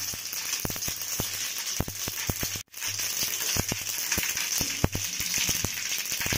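Mustard seeds popping in hot oil in an aluminium kadai during tempering, with irregular sharp crackles over a steady sizzle. The sound cuts out for a moment about two and a half seconds in.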